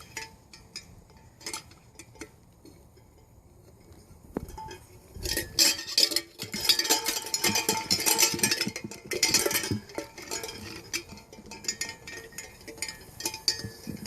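Chocolate Labrador puppies playing: scattered clicks, building about five seconds in to a dense, loud clatter for several seconds, then thinning out again.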